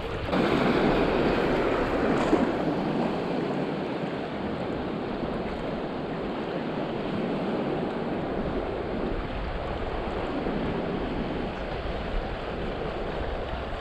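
Small sea waves washing in the shallows as a steady rushing hiss, louder for the first two seconds or so, with wind on the microphone.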